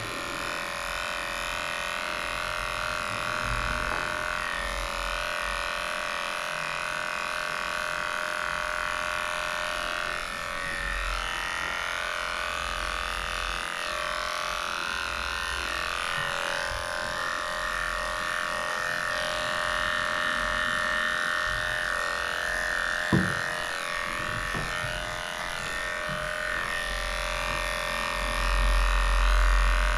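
Cordless dog clippers fitted with a #10 blade, running steadily as they shave through a dog's coat, with one short knock about two-thirds of the way through.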